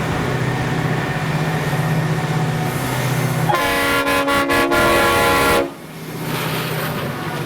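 G class diesel-electric locomotives running with a steady low engine drone, then a chime-type locomotive horn sounding one multi-note blast about two seconds long with a few brief breaks, the loudest thing here. The engine drone carries on after the horn, with some wind on the microphone.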